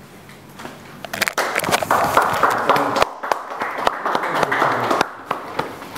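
Audience applauding. The clapping starts about a second in, stays dense for a few seconds and dies down near the end.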